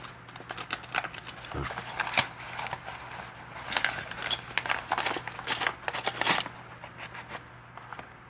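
Small metal lock cylinders and padlocks being handled: a fast, irregular run of clicks, clinks and rattles, with a few louder knocks.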